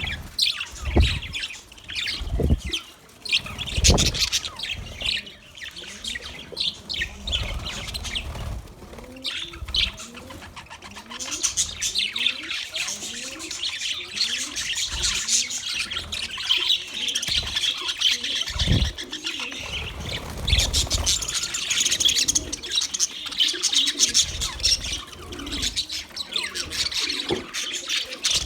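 A flock of budgerigars chattering and chirping, a sparse twitter that becomes a dense, continuous warble about ten seconds in. Now and then there are low thumps.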